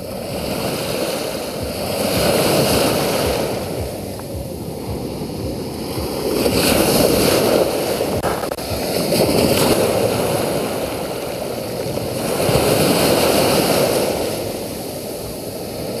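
Small, choppy sea waves breaking and washing up over a sandy beach at the water's edge. The surf swells and ebbs in slow surges every few seconds.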